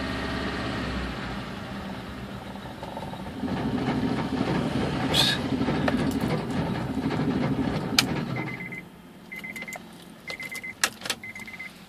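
Car engine running at idle, then shut off with a click about eight seconds in. A warning chime then beeps repeatedly, with a few clicks and knocks.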